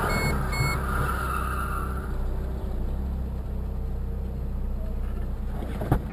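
A car's steady engine and road noise while driving, with a few short electronic beeps near the start and a sharp knock just before the end.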